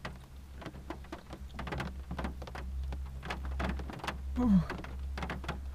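Rain pattering on a car's roof and windscreen, heard from inside the cabin as irregular taps over a low steady hum. A short falling voice sound comes about four and a half seconds in.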